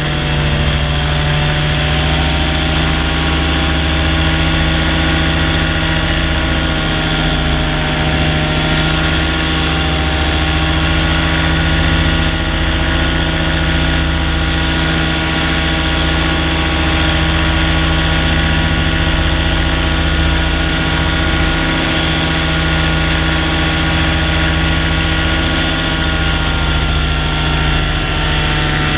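Blackhawk 125 paramotor's two-stroke engine and propeller running steadily under power during a climb, with a slight wavering in pitch a few seconds in.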